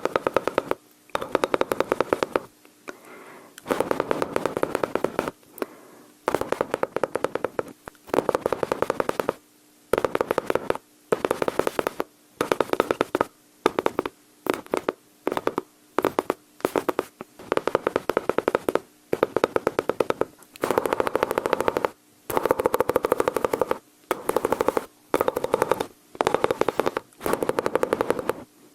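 Mouth sounds imitating machine-gun fire: rapid rattling bursts of tongue clicks and pops, each lasting about a second, with short pauses between them, repeated over and over.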